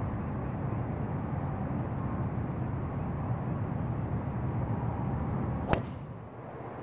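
A golf club striking a ball once, a single sharp crack about three-quarters of the way through, over a steady low rumble.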